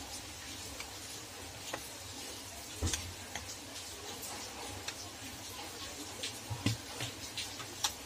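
Scattered light plastic clicks and taps as a keypad phone's housing is handled and its front frame pried off the body, with a louder knock about three seconds in and a quick run of clicks near the end.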